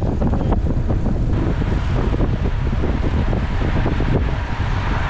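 Wind buffeting the microphone of a cyclist's camera while riding at road speed: a steady loud rush with an uneven low rumble.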